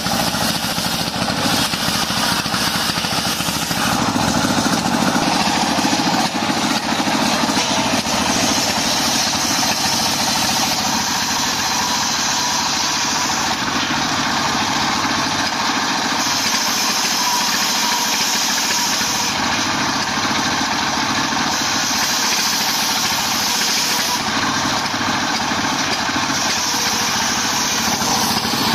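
Stationary diesel engine running steadily, belt-driving a homemade circular saw that rips a lamtoro (leucaena) log. A higher whine from the blade cutting the wood comes and goes several times as the timber is fed through.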